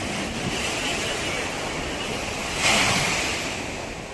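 Ocean surf on a beach: a steady wash of waves, with one wave breaking louder a little past halfway through and then fading.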